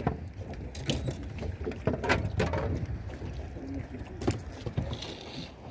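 Scattered knocks and clatter of things being handled against an aluminium boat's hull, over a steady low rumble of wind and water.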